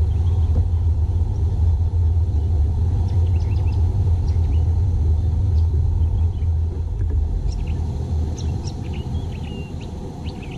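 Steady low rumble while the kayak moves along, easing a little near the end. Scattered short bird chirps come in over it from about three seconds in, more of them in the last few seconds.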